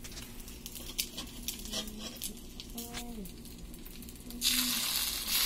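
A few light clicks, then about four seconds in, beaten egg poured onto a hot cast-iron tawa starts sizzling loudly and keeps on frying.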